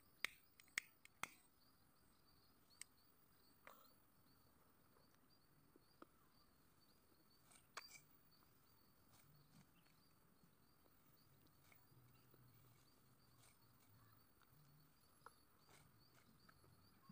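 Near silence, broken in the first second and a half by three sharp clicks of a small disposable lighter being flicked to light a cigarette, then a few faint scattered ticks.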